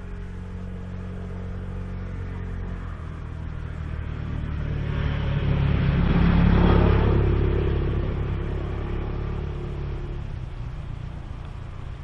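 A motor vehicle passing by: its engine and a rushing noise swell to their loudest just past the middle and then fade away.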